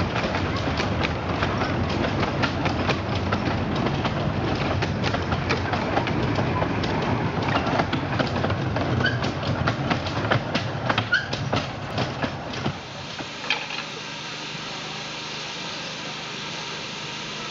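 Miniature-railway passenger coaches rattling past, their wheels clicking over the rail joints. About two-thirds of the way through this gives way to a steady, quieter hiss from the small steam locomotive standing at the platform.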